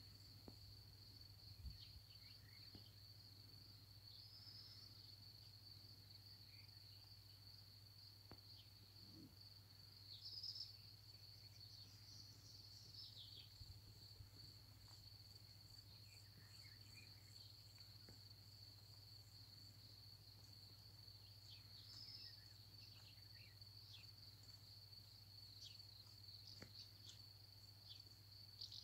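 Faint, steady high-pitched trilling of crickets in a summer field at dusk, with a few short bird chirps here and there.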